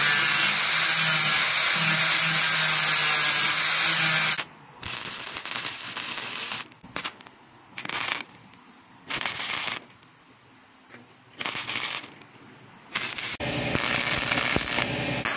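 Welding arc crackling as holes in steel are welded shut. There is one long run of about four seconds, then several short bursts with pauses between them, and a longer burst near the end.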